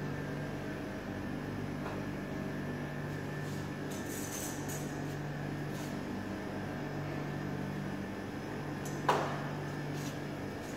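Steady machine hum of a buffet restaurant's room, with faint ticks and one sharp clink of dishes near the end.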